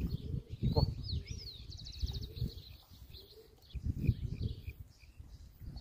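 Small birds calling: a few quick high chirps, then a short rapid trill about two seconds in. Bursts of low rumble come and go underneath.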